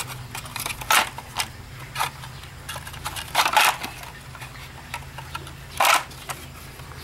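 Wire cutters snipping copper wire out of a dismantled vacuum cleaner: scattered sharp clicks and snips, with louder short clatters of parts being handled about three and a half and six seconds in, over a low steady hum.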